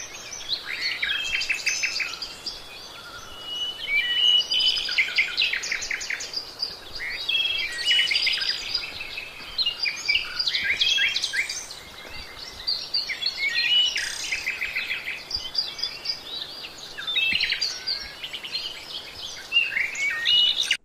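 Several small songbirds chirping and singing at once, a continuous chorus of overlapping short calls and rapid trills.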